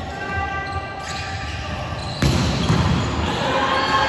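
Volleyball rally in an echoing sports hall: a sharp strike of the ball about two seconds in, after which the play gets louder, with players' voices.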